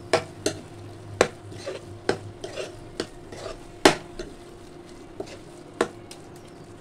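Steel spoon stirring thick pumpkin sabzi in a kadhai, scraping through the food and knocking against the pan with sharp clanks at irregular intervals. The loudest clank comes nearly four seconds in.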